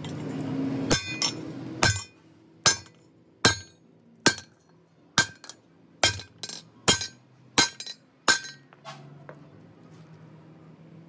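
Hammer striking metal, about a dozen sharp blows a little under a second apart, each with a short metallic ring; the blows stop about eight and a half seconds in.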